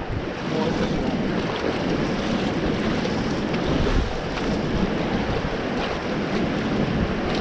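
River water rushing and splashing around a raft as the crew paddles forward, with wind buffeting the microphone.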